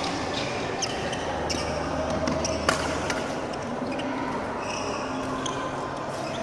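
Badminton rally: sharp cracks of rackets hitting the shuttlecock at uneven intervals, the loudest a little under three seconds in. Short squeaks of shoes on the court floor come between the hits.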